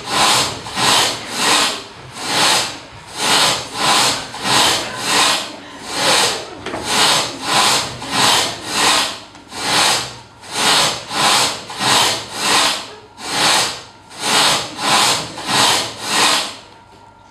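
Hand saw sawing in quick back-and-forth strokes, about two a second, stopping near the end.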